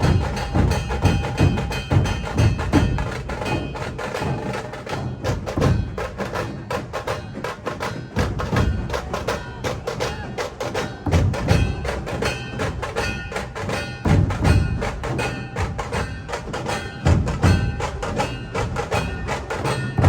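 Music with fast, steady percussion strikes and ringing tones.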